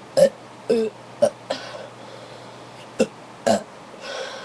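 A person burping after drinking soda: a run of short belches, several close together, then a pause of about a second, then a few more.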